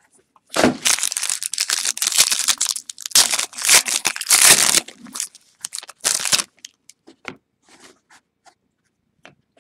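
Plastic wrapper of a trading-card pack being torn open and crumpled, in loud bursts of crinkling and rustling for about six seconds. After that, only a few soft taps and clicks as the cards are handled and slid out of the pack's box.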